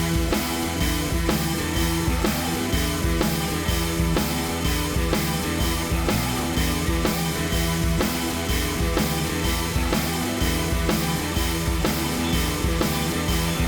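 Background music: a rock track with drum kit and guitar and a steady beat.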